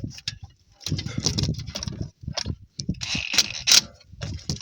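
Irregular clicking and metallic clatter of hand tools working the alternator's bolts, with a louder burst of clatter about three seconds in.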